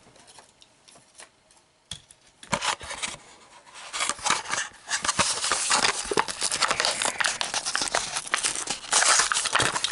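Plastic blister pack on a cardboard backing card being cracked and torn open by hand. It starts with a few faint clicks, and from a couple of seconds in there is near-continuous crinkling and tearing.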